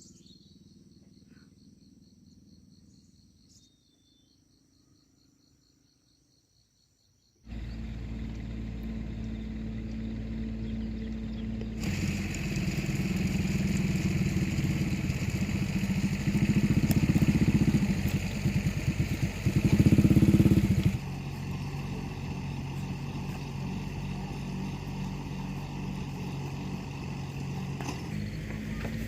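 A small engine running, after several seconds of near silence. It comes in abruptly, runs louder and harder for several seconds in the middle, then settles to a steady run.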